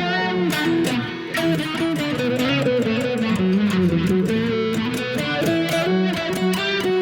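Electric guitar played through an overdrive and a wah pedal into an amp simulator, with single-note lead phrases and some string bends.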